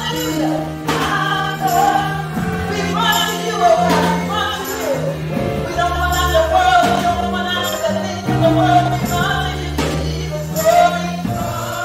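Gospel worship music: voices singing over sustained chords and a held bass line that changes note every second or two.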